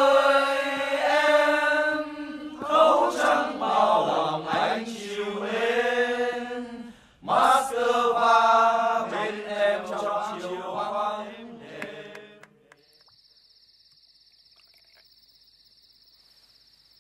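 A man singing a slow song in long, held notes, which ends about twelve and a half seconds in. After that, the faint steady chirring of crickets.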